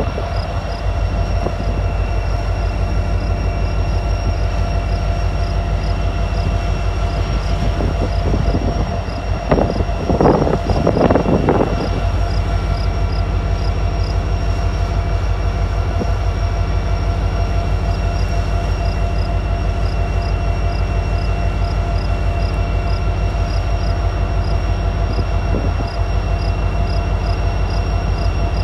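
Union Pacific SD70ACe diesel-electric locomotive's EMD 710 two-stroke V16 engine running close by, a steady, loud drone with an even pulsing beat. There is a short rush of noise about ten seconds in.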